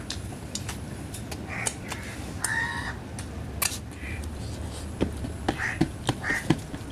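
Chewing and lip-smacking from a man eating rice and curry by hand, with quick wet clicks growing frequent in the last two seconds. Crows caw now and then in the background.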